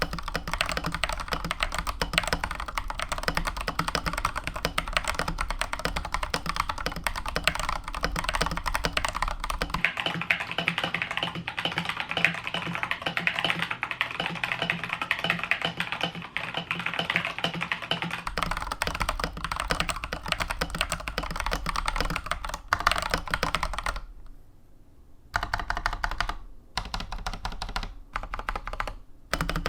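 Typing on a GamaKay LK67 65% mechanical keyboard with Feker Holy Panda tactile switches and thick PBT XDA keycaps: a dense, fast stream of key clacks, with a case sound the owner calls hollow. The typing stops briefly about 24 seconds in, then goes on in shorter bursts.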